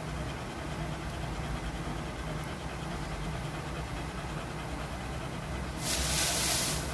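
Dog in labour panting steadily over a constant low hum. Near the end comes a louder rustling burst from the shredded-newspaper bedding.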